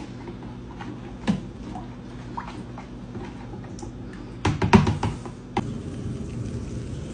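A utensil stirring a sauce in a plastic container, knocking and clicking against its sides: a single click about a second in, then a louder cluster of knocks a little past the middle. A steady low hum runs underneath.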